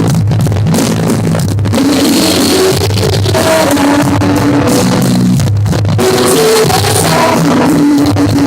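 A live band playing a rock song with guitar and a singing voice, loud and with poor recording quality.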